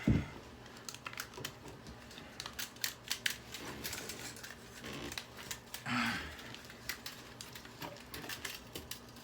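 A plastic hair dryer housing being pried and pulled apart: a run of irregular small clicks, snaps and cracks, with a thump at the start and a short scraping rasp about six seconds in.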